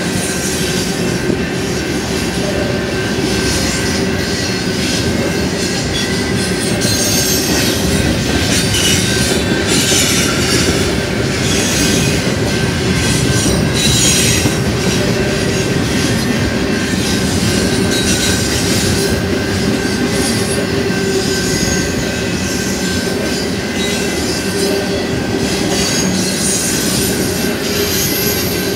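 Union Pacific double-stack intermodal freight train rolling steadily past: a continuous rumble and clatter of steel wheels on rail, with a steady high squeal over it. It grows a little louder partway through.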